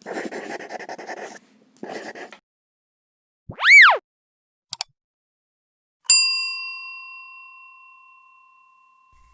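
Intro sound effects: two short bursts of noise, a swooping tone that rises and falls, a pair of clicks, then a single bell-like ding that rings out and fades over about three seconds.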